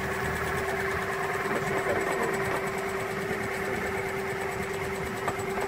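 Case 695 backhoe loader's diesel engine running steadily with a constant whine, powering the hydraulic mowing bucket at the end of its arm.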